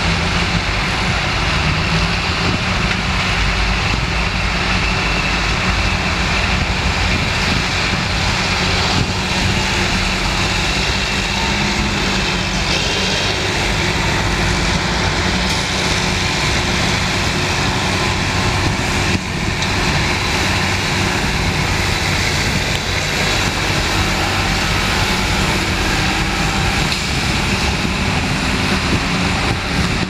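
Steady heavy diesel engine and machinery noise from a tractor pulling a sugarbeet harvester while a beet truck runs alongside being loaded.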